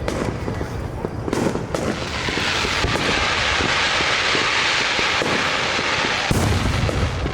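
Fireworks going off in a show: aerial shells booming and popping, with a dense hissing crackle from about two seconds in. A heavy boom comes about six seconds in.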